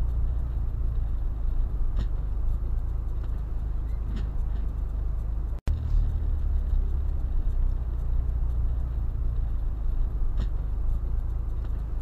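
Steady low rumble of a car's tyre and engine noise at highway speed, heard from inside the cabin, with a few faint ticks and a split-second dropout about halfway through.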